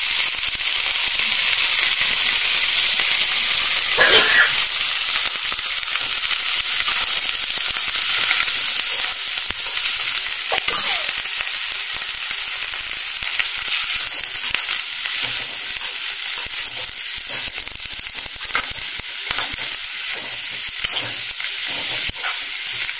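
Freshly washed, still-wet moringa (drumstick) leaves sizzling in hot oil in a kadai, with a spoon scraping and clicking against the pan as they are stirred. The sizzle jumps up at the start as the leaves go in and eases a little later on.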